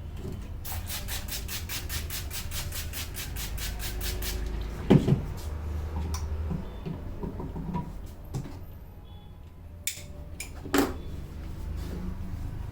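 Hands tapping rapidly on a head during a head massage, an even patter of about seven strikes a second for three or four seconds, followed by a few separate slaps, the loudest about five seconds in.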